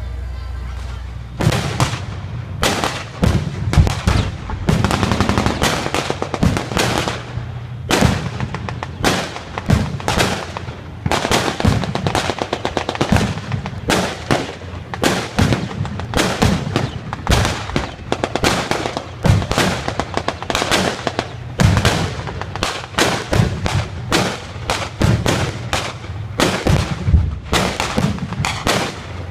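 Rapid, continuous blank gunfire and cannon bangs from a World War II reenactment battle, several shots a second with heavier booms among them. It starts about a second and a half in, after a low steady hum.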